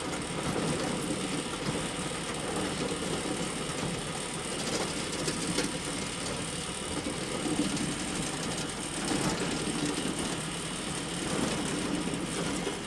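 Bale elevator running: a steady mechanical rattle of its conveyor, even throughout.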